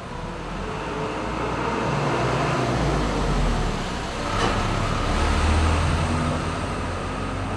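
A deep low rumble that swells twice and fades, with one sharp knock about four and a half seconds in.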